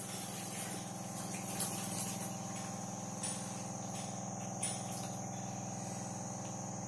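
Steady low electric hum with a thin, high-pitched whine, from a water purifier's RO booster pump running, with a few light plastic clicks of parts being handled.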